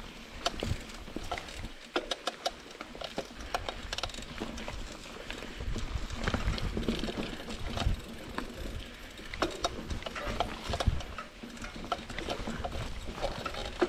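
Trek Marlin 7 hardtail mountain bike ridden over rough dirt singletrack: chain, frame and parts clattering with many quick sharp knocks, tyres rolling on dirt, and a low wind rumble on the mic.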